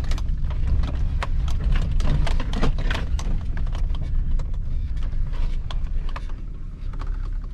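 2002 Chevy Silverado two-wheel-drive pickup driving over a rough dirt trail: a steady low engine and road rumble with frequent irregular knocks and clatters from stones and the body and suspension jolting.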